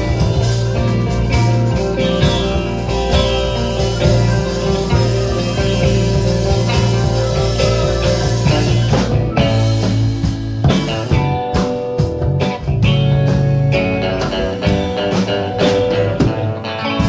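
Live rock band playing with electric guitars, bass guitar, drum kit and keyboard: held chords over a steady bass line, changing about halfway through to short, accented stabs with drum hits.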